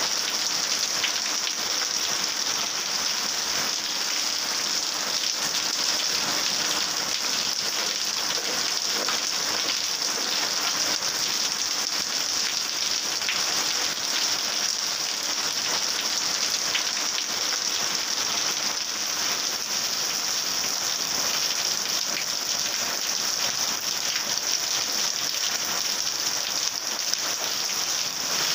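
Heavy rain falling steadily on foliage, tile roofs and a wet road: a dense, even hiss full of close, fine drop patters.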